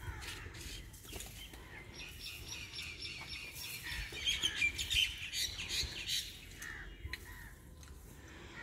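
Birds chirping in a dense run of short, high chirps from about two seconds in to about six seconds, over faint low background noise.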